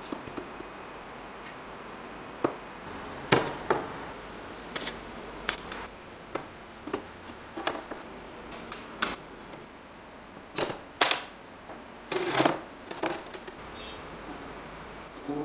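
Steel parts being handled and set against each other, making a string of sharp, irregular metallic knocks and clicks over a steady low hiss.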